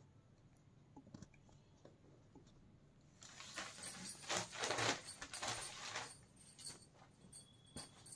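Cotton saree cloth rustling as it is moved and spread out by hand, starting about three seconds in, followed by a few light clicks and taps.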